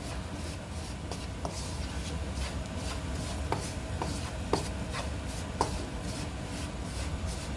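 Wooden spatula scraping and stirring semolina being roasted in a nonstick wok, with a few light clicks scattered through the stirring.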